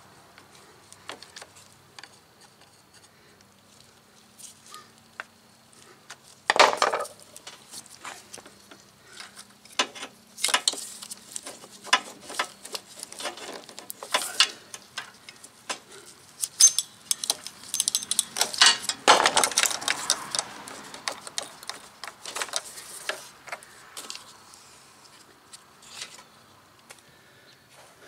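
Locking pliers and a metal hose clamp clinking and rattling as the intercooler hose is worked off its pipe: scattered sharp metallic clicks, busiest in the middle, with louder scraping noises about six and a half seconds in and again around nineteen seconds.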